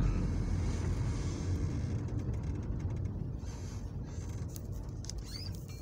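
Steady low rumble of a car's engine and tyres heard from inside the cabin while driving, gradually getting quieter over the few seconds.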